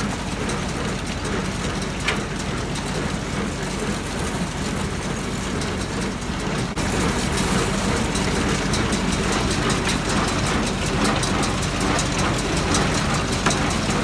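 Tractor-driven Massey Ferguson 120 square baler and homemade chain-table rebaler running, as hay is unrolled from a round bale and fed into the baler. It is a steady engine hum with machinery clatter. About halfway through the sound changes abruptly, becoming a little louder with a fast clicking rattle.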